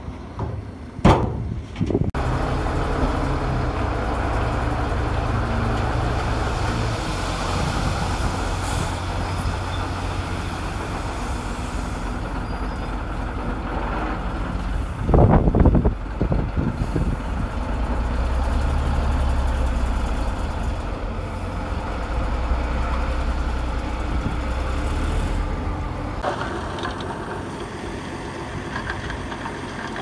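Diesel engine of a Komatsu D20P crawler bulldozer running steadily at work, its low note shifting in pitch several times. Loud sudden clattering comes about a second in and again about halfway through.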